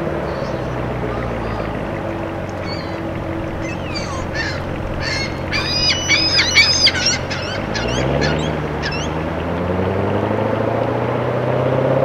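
Chevrolet Corvette C7's V8 burbling at low speed, its pitch rising from about two-thirds of the way in as it pulls away. A flock of gulls calls loudly over it in the middle stretch.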